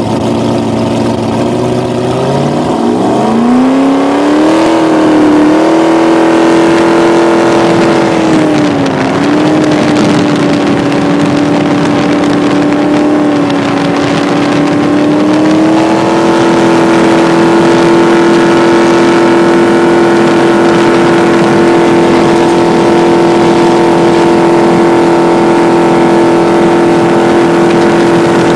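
Jet boat's Ford 460 big-block V8 revving up hard over the first few seconds, dipping briefly, then running steadily at speed, with a small rise in pitch about halfway through before it holds an even cruising note.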